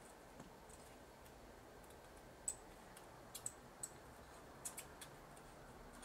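Faint, irregular sharp ticks of flux spitting as a soldering iron heats copper desoldering braid on circuit-board solder joints. There are about eight ticks, mostly in the middle, and the loudest comes about two and a half seconds in.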